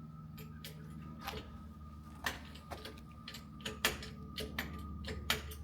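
Irregular sharp metallic clicks and knocks as a caravan wheel is lifted, lined up and fitted onto the hub's wheel studs, the knocks coming more often in the second half.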